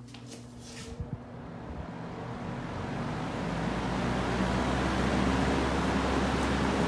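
Lasko four-blade Breeze Maker vintage box fan starting up: after a click about a second in, the motor hum and the rush of air grow steadily louder over about four seconds as the blades spin up, then run steady.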